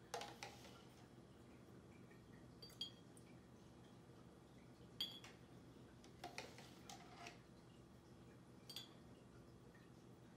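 Metal spoon clinking and tapping faintly against a glass jar and a plastic cup while sugar water is spooned down the inside of the glass: a handful of light, scattered clinks, some with a short ring, over a low room hum.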